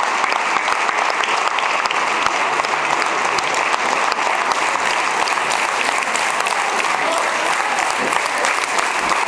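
Audience applause: dense, steady clapping from a large crowd that does not let up.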